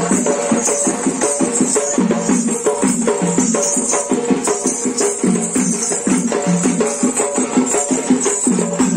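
Loud, fast folk dance music driven by drums, with a steady jingling of bells or rattles over an even, rapid beat.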